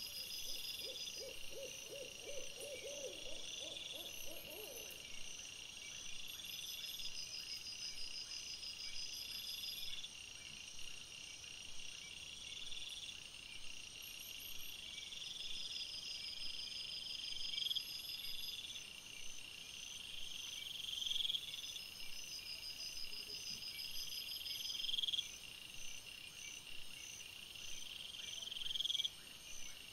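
A steady chorus of night insects, crickets and bush crickets chirping in high, repeating phrases that swell and stop every couple of seconds. About a second in, a quick run of low pulsed calls, about ten in a row and rising slightly, lasts a few seconds.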